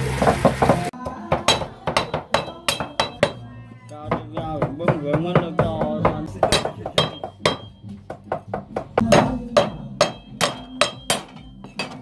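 A frying sizzle cuts off about a second in. Then comes a run of sharp knocks, roughly three a second, with voices faintly behind.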